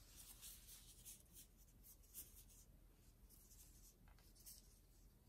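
Faint papery rustling and scratching of a thin filo pastry sheet being rolled up by hands in plastic food-prep gloves, in short repeated bursts.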